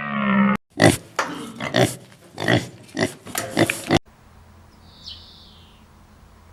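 Elephant vocalizing: a short pitched call that cuts off about half a second in, then a run of about seven rough, noisy bursts over some three seconds. After an abrupt cut comes a quiet stretch with one faint high chirp.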